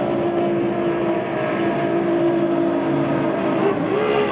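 Outboard engines of racing powerboats running at full speed as the boats pass close by, a steady high engine note whose pitch rises near the end.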